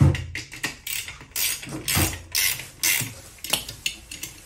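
Front wheel and rubber tyre of a Xiaomi electric scooter being turned and worked by hand: irregular ratchet-like clicks and rubbing, several a second, with a heavier thump at the start and another about two seconds in.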